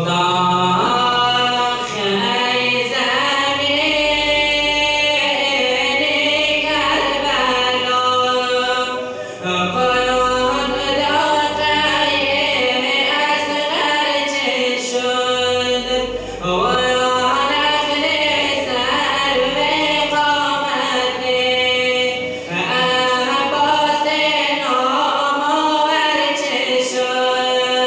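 A young man's solo voice chanting a Shia Muharram lament (rawza) into a microphone, unaccompanied. It moves in long held, wavering melodic phrases, with short breaks for breath between them.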